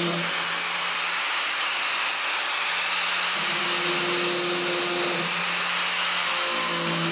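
Angle grinder with a wood-shaping (stock-removal) disc running continuously as it grinds out a concave recess in a wooden board: a steady grinding whir with a low motor hum that drops out about a second in and comes back about halfway through.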